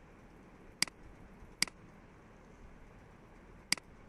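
Three sharp computer mouse clicks: two less than a second apart, then a third near the end, over a faint steady hiss.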